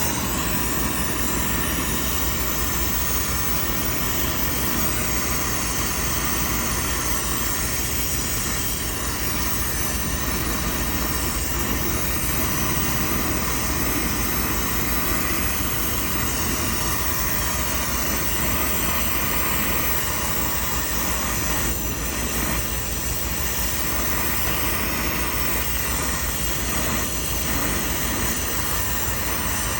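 Steady drone of running machinery with a low, even hum underneath, and a few faint knocks in the last third.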